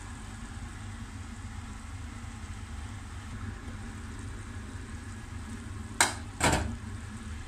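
Tofu and kangkong simmering in a frying pan, a steady frying sound. Near the end, two sharp clanks half a second apart as the glass pan lid is lifted off and set down.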